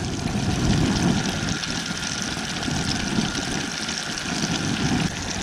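White perch deep-frying in hot oil: a steady sizzling.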